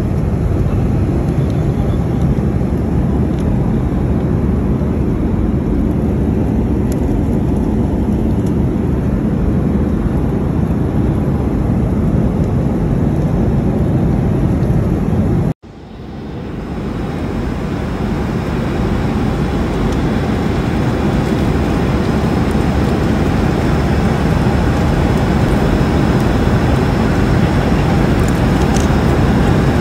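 Airliner cabin noise in flight: the steady roar of engines and airflow heard from a passenger seat. About halfway through it cuts out abruptly and swells back up over about two seconds.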